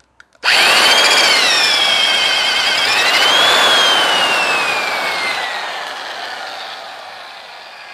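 Electric T-drill motor starting suddenly with a loud whine about half a second in. It dips and recovers while the tool pulls a 3/4-inch outlet collar up out of the 1¼-inch copper pipe, then the motor coasts down with a steadily falling whine.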